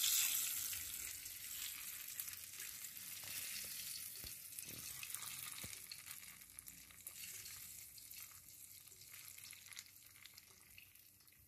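Ghee tempering of fried onions, whole dried red chillies and cumin sizzling off the heat, loudest at the start and dying away steadily over the seconds, with a few light knocks of a silicone spatula as it is stirred.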